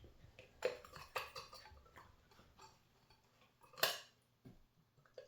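A few light metallic clicks and knocks from hands working on a sewing machine, the loudest knock about four seconds in.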